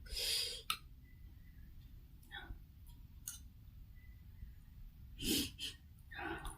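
Close-miked eating sounds of pork noodle soup: a few short slurps and breaths with small mouth and utensil clicks, separated by quiet pauses; the loudest comes about five seconds in.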